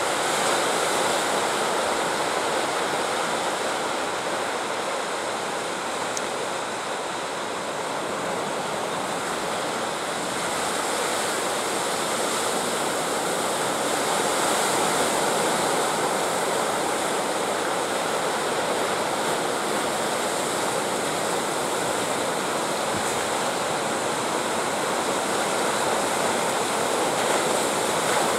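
Ocean surf: waves breaking and washing in a continuous rush of water.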